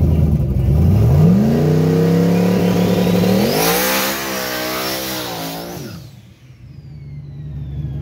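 Turbocharged fourth-generation Chevrolet Camaro engine idling, then revving up in two steps to high rpm and held there with a hiss as it spins its rear tyres in a burnout. The sound drops away about six seconds in, leaving a thin falling whine, before an engine idles again near the end.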